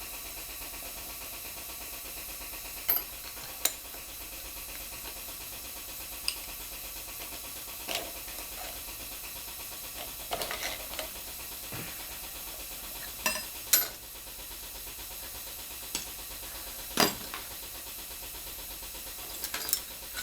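Scattered sharp clicks and knocks of hand tools and small metal engine parts being handled during a two-stroke engine teardown, about a dozen spread unevenly, over a steady background hiss.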